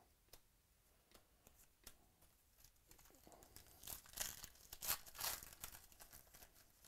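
Foil trading-card pack being torn open by hand, its wrapper crinkling, with the loudest tearing about four to five and a half seconds in. A few light clicks come before it.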